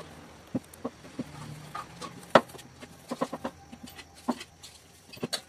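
Rolling pin knocking and clicking against a round rolling board as small dough wrappers are rolled out by hand, in irregular sharp knocks, the loudest a little over two seconds in.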